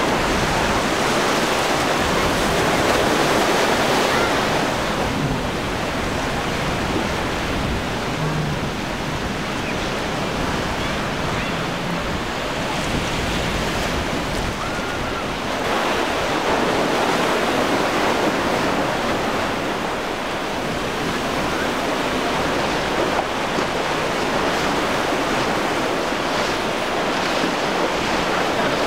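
Surf breaking and rushing in rough seas, with wind buffeting the microphone. The wash swells louder twice, once at the start and again about halfway through.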